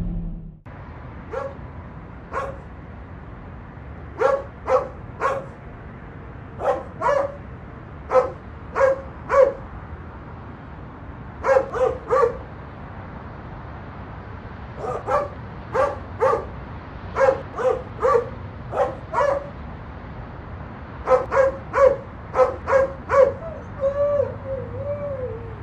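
Rottweiler barking in short clusters of two to four sharp barks, with pauses between clusters, then whining near the end.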